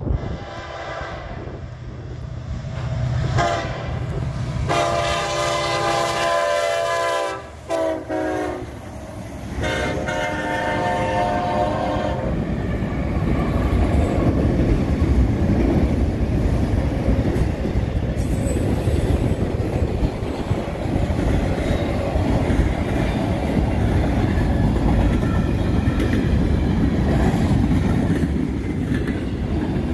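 A Canadian National freight locomotive's air horn sounds the grade-crossing signal: two long blasts, a short one and a final long one. After that, the locomotives and freight cars pass close by with a steady rumble and the clickety-clack of wheels on rail joints.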